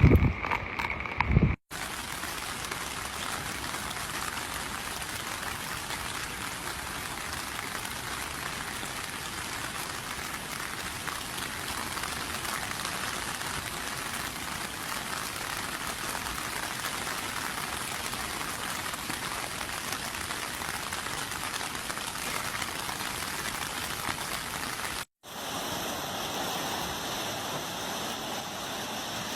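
Heavy typhoon rain pouring down in a steady, even hiss. It opens with a moment of wind rumbling on the microphone, cut off abruptly about two seconds in, and the rain breaks off just as suddenly near the end.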